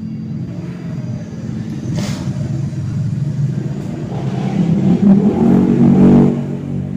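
A man belching long and hard, a rough low sound that swells to its loudest about five to six seconds in and then dies away. In this massage for masuk angin, the belching is taken as trapped 'wind' leaving the body.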